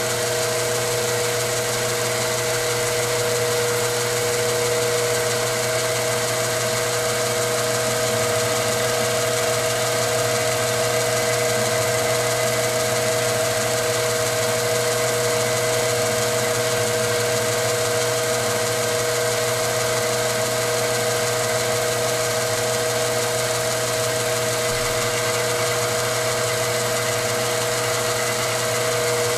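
Milling machine running steadily, its end mill cutting a slot through the wall of a shotgun brake as the part is slowly rotated: a constant machine hum with a steady whine.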